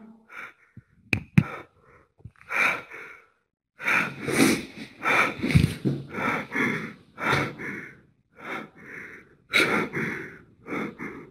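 A man's heavy, fast breathing close to the microphone, the breaths coming in in-and-out pairs about once every second and a half. A couple of sharp clicks come about a second in.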